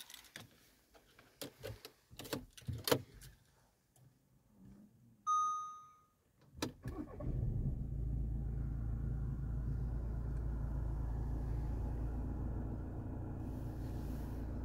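Key clicks and rattles, a single dashboard chime about five seconds in, then the 2017 VW Tiguan's 2.0 TDI diesel engine starts about seven seconds in and runs at a steady idle, easing slightly quieter about thirteen seconds in.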